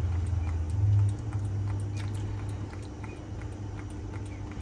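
A metal spoon ladling soup from a stainless saucepan into a glass bowl, with a few faint clinks over a low steady hum that eases off after about three seconds.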